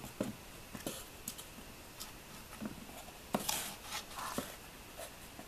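Faint scattered taps and scuffs of shoes stepping onto a tiled floor, with a sharper tap followed by a couple of short scrapes a little past halfway.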